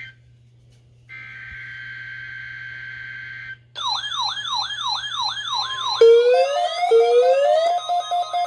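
Weather-radio test broadcast: a steady two-tone digital SAME header burst, then several weather radios set off their alert alarms. First comes a rapid, repeating falling warble; about six seconds in, more alarms join with rising chirps and steady beeping, layered over one another.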